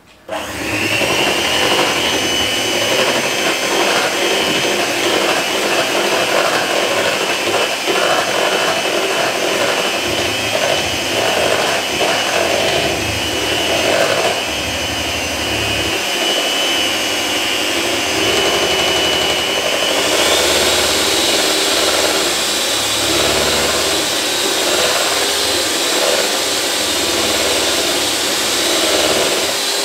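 Electric hand mixer running steadily in a bowl, whisking a shake mix. Its motor whine steps up in pitch about two-thirds of the way through.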